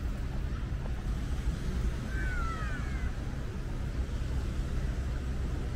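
Outdoor city ambience on a seaside promenade: a steady low rumble of urban and traffic noise. About two seconds in comes a short, high, falling chirp.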